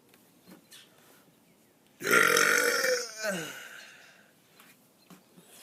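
A man's deliberate, loud burp starting about two seconds in and lasting about a second and a half, its pitch dropping toward the end.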